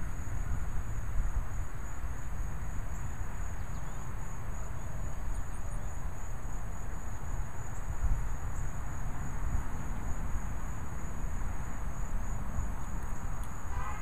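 Steady low wind rumble on the microphone, with insects trilling continuously in a high, finely pulsing tone.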